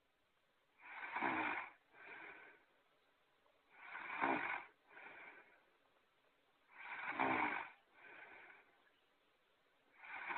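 A character's snoring sound effect on a loop: a loud snore followed by a shorter, softer one, repeating about every three seconds, three times over, with a fourth starting near the end.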